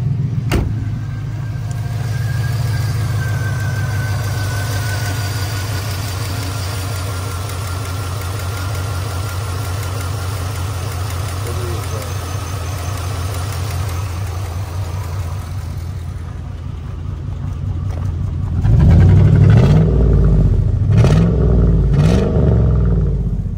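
Chevrolet pickup's engine running rough with a bad misfire, then revved a few times near the end at the tailpipe, sounding like a derby car. The owner puts the misfire down to a bent exhaust valve letting oil out through the exhaust.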